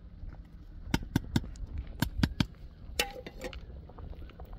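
A series of sharp knocks: three quick ones about a second in, three more about two seconds in, and another about three seconds in with a brief ring after it.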